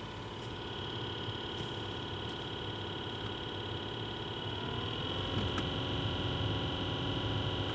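2007 Suzuki Grand Vitara's heater blower motor and fan running with a steady whine that rises in pitch and gets louder about halfway through, with a few faint ticks. It runs a little noisily with slight clicking, which the owner puts down to replacement brushes, filed to fit on a new commutator, that have not yet bedded in.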